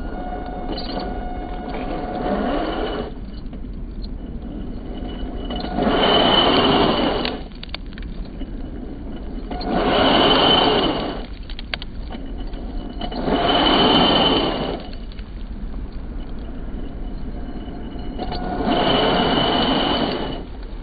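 RC truck's motor and drivetrain running, with four throttle bursts of about a second and a half each that rev up and die back, a high whine on each, as the tyres spin and spray dirt.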